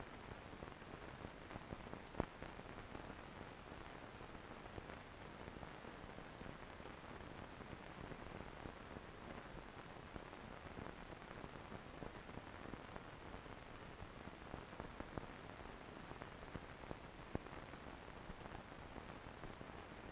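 Faint steady hiss with two sharp clicks, about two seconds in and near the end: the background noise of a silent amateur film transfer, with no sound from the trains.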